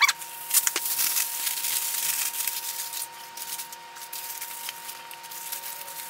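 Aluminium foil crinkling and rustling as it is wrapped and pinched into creases around a metal billy can, with a sharp crackle at the start and a few more about half a second in.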